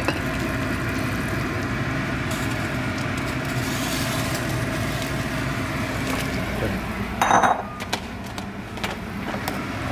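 Steady kitchen hum under hot pho broth being ladled into a bowl. About seven seconds in there is a short, ringing clink of kitchenware, and the hum is a little quieter after it.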